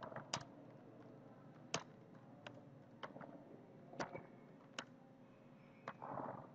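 Computer keyboard keys clicking faintly as text is typed, single clicks at uneven intervals with a few sharper ones. A brief soft rustle near the end.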